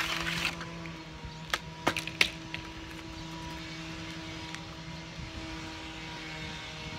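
A few sharp plastic clicks about two seconds in, as hands work the controls on the engine of a RedMax CHTZ2400 hedge trimmer that has not yet been started. A short rush of noise comes at the very start, and a steady low hum runs underneath.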